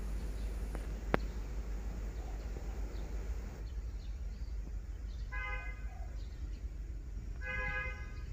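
Diesel locomotive horn sounding two short blasts about two seconds apart as the freight train nears the level crossing, over a steady low rumble of the approaching train. A single sharp click about a second in.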